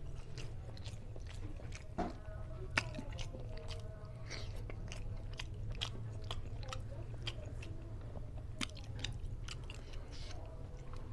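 Close-up eating sounds of a man eating fish head and rice with his fingers: wet chewing and lip smacking with many short sharp mouth clicks, over a steady low hum.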